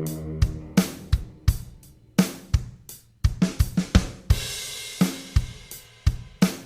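Background music: a drum kit playing a loose beat of kick, snare and hi-hat, with a cymbal crash about four seconds in, as a held guitar chord dies away at the start.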